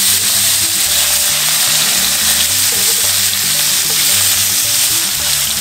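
Whole mojarra fish sizzling steadily as they fry in hot oil in a pan over a wood fire, with background music underneath.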